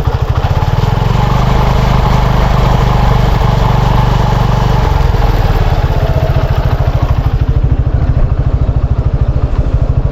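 Motorcycle engine running with an even, rapid firing pulse. It is fuller for the first few seconds, then drops back to a steadier idle about five seconds in.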